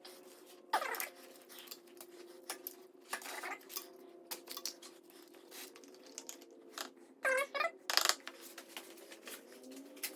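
Scattered clicks, scrapes and rustles of hands working a motorcycle's main oil filter off, over a faint steady hum. There is a brief squeak about seven seconds in.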